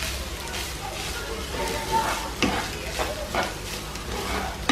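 Wooden spoon stirring and scraping basmati rice with sautéed vegetables in a hot nonstick frying pan, with a light sizzle as the rice reheats. Several scrapes, the sharpest about two and a half seconds in.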